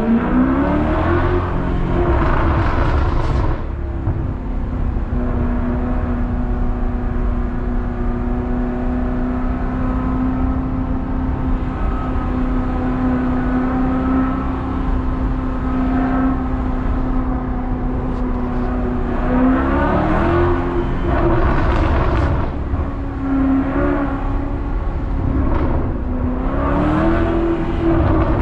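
Maserati Quattroporte's loud V8 exhaust heard from the driver's seat: the revs rise in the first few seconds, then it drones steadily at a constant engine speed for a long stretch, and rises and falls again twice near the end.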